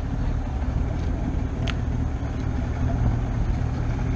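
A boat engine idling: a steady low rumble, with a short sharp clink about a second and a half in.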